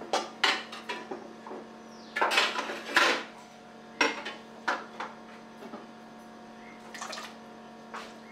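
Steel pot, spoon and glass clattering in a stainless steel kitchen sink during washing up: a series of sharp clinks and knocks, with tap water running briefly.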